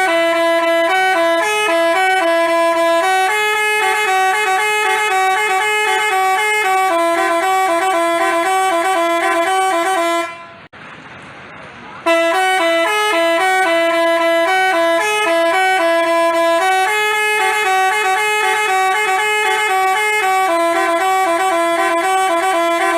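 Basuri telolet bus horn, a multi-trumpet horn, playing a fast melody of short stepping notes. It breaks off about ten seconds in for a second and a half, then plays the phrase again.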